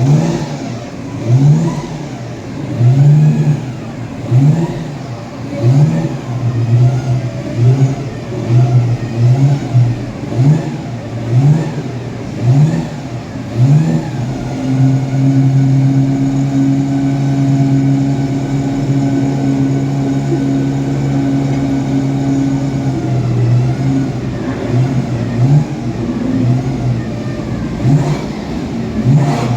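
Historic racing car engine revved in short repeated blips, each rising and dropping back, then held at one steady high pitch for about eight seconds before the blips resume.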